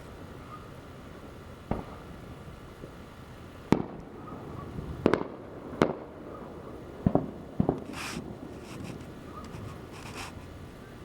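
Fireworks going off: about six sharp bangs spread over several seconds, with a few short hissing bursts near the end.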